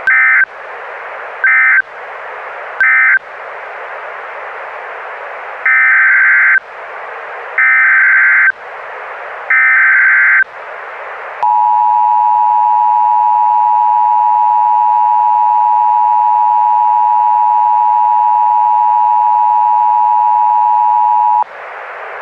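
Emergency Alert System digital tones over steady radio hiss: three brief shrill data bursts (the end-of-message code), then three longer ones (a message header). About eleven seconds in, the EAS two-tone attention signal begins, a steady dual-pitched tone held for about ten seconds before cutting off.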